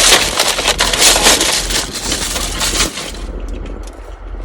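Loud crackling and crunching rustle close to the microphone that drops off suddenly about three seconds in, leaving a fainter scattered crackle.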